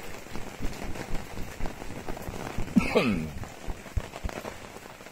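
Rain pattering on a camper van's awning canvas overhead, a steady hiss with many small irregular taps. A brief voice sound comes about three seconds in.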